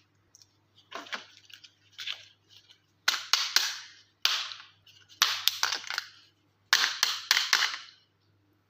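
Toy packaging being crinkled and torn open at close range, in a string of short crackling bursts about a second apart that grow louder after the first couple.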